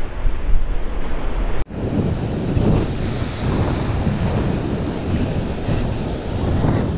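Sea surf washing on a rocky shore with wind buffeting the microphone. The sound breaks off abruptly about one and a half seconds in and resumes straight away with more hiss.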